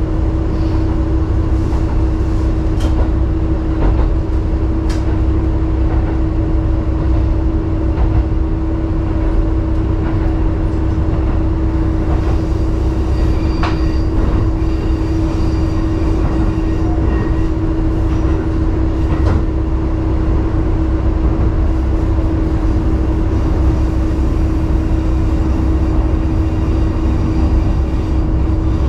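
Inside a KiHa 11 diesel railcar under way: the steady drone of its diesel engine and running gear, with a constant hum and low rumble, and a few sharp clicks from the wheels and rails.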